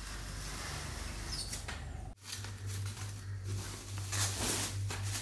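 Plastic cling film being pulled off its roll and wrapped around a backpack, crinkling and squeaking, then crackling as hands press the wrapped bag. The sound drops out briefly about two seconds in, and a low hum sits under it after that.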